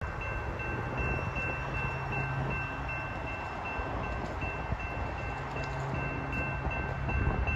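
Railroad grade-crossing warning bell ringing steadily, about two and a half strokes a second, as the crossing activates for an approaching train, with wind noise on the microphone.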